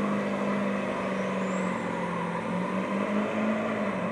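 Lifted GMC Sierra HD pickup doing a burnout, its rear tyres spinning in smoke. The engine is held at steady high revs, a constant drone over the hiss of the spinning tyres, and its pitch dips a little near the end.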